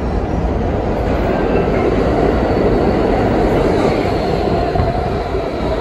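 A five-car R160B subway train with Siemens propulsion arriving into an underground station, its wheels running on the rails in a loud, steady rumble that swells as the cars come alongside the platform. Faint high whines come in during the second half.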